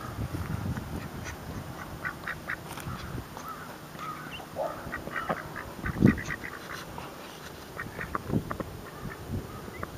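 Domestic ducks quacking, short calls scattered throughout, with a brief louder thump about six seconds in.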